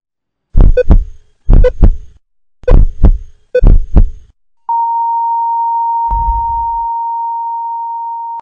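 Four slow heartbeats, each a double thump, then about halfway through an unbroken single high beep that holds to the end: a heart-monitor flatline, the sign that the heart has stopped. One more low thump sounds under the tone about six seconds in.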